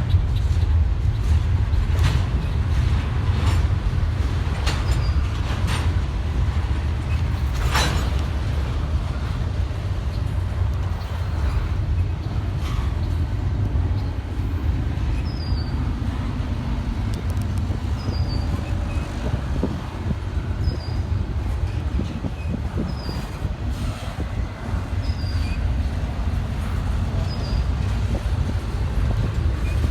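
Long CSX freight train rolling slowly past, a steady low rumble with sharp clicks and clanks of the cars in the first few seconds. In the second half, short high chirps repeat about every two seconds.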